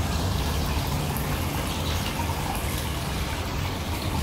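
Steady splashing of a garden pond's fountain, picked up by a smartphone's built-in microphones.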